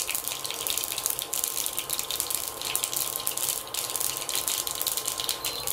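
Mustard seeds spluttering in hot oil in a nonstick frying pan: a dense, irregular run of sharp little pops over a sizzle, the quick crackle that comes as soon as the seeds hit oil that is hot enough. A faint steady whine sits underneath.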